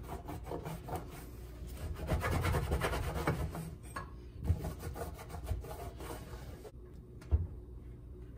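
Microfiber cloth scrubbing the enamel top of a gas stove around a burner: a run of quick rubbing strokes, busiest in the middle and thinning out later. Two short knocks, the sharper one near the end.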